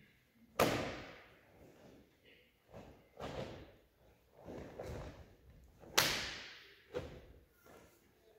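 A martial artist performing a Tae Kwon Do–based pattern: about five sharp snaps and thuds from the uniform and bare feet as strikes and stances land, each ringing on in the large hall's echo. The loudest come about half a second in and about six seconds in.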